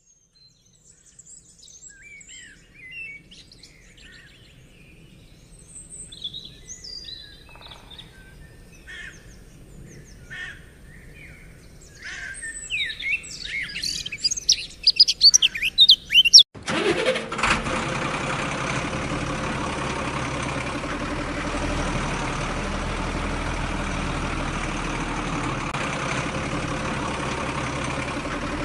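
Birds chirping and calling, busier and louder about twelve seconds in. About sixteen seconds in, a truck engine sound starts abruptly and keeps running steadily.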